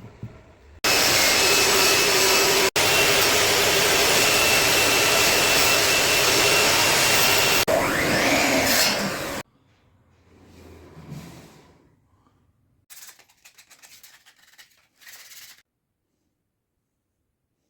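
An electric power tool on wood runs loud and steady for about eight and a half seconds, briefly broken early on, its pitch sliding just before it cuts off. Later come a few seconds of quiet, quick scratching strokes.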